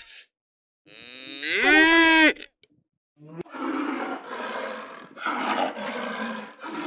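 A cow moos once, a single drawn-out call that rises in pitch and then holds. After a short gap, from about three and a half seconds in, a tiger growls in several rough bursts.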